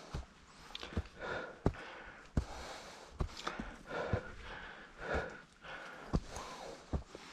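A hiker breathing hard from climbing a steep trail, about one breath a second, with steady footsteps on dry bamboo leaf litter landing about every three-quarters of a second as sharp steps.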